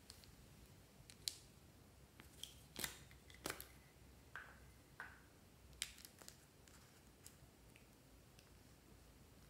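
Plastic caps being pulled off two glue sticks and the sticks handled: a handful of sharp plastic clicks and snaps, with two short squeaky pops in the middle.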